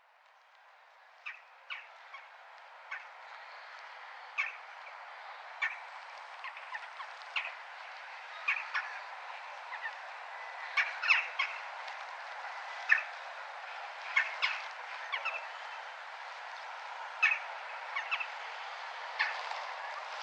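A crow cawing repeatedly in short, sharp calls at irregular intervals, some singly and some in quick pairs or clusters, over steady town background noise that fades in over the first few seconds.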